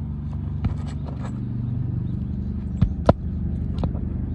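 Hammer blows driving roofing nails back into asphalt shingles: a light tap, then two loud strikes in quick succession about three seconds in and a weaker one after. A steady engine drone runs underneath.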